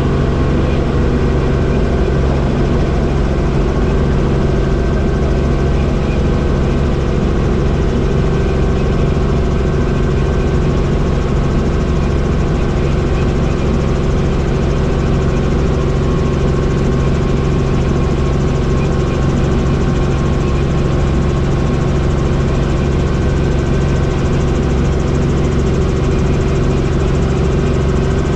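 Helicopter running with a steady, unbroken drone of engine and rotor.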